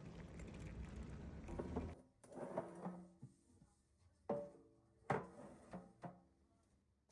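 Household handling sounds: a rustling rumble, then a few sharp knocks of objects being set down, each with a short ring after it.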